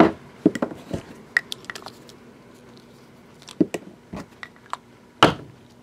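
Scattered clicks, taps and light knocks from card boxes being handled and set down, with a sharper knock about five seconds in.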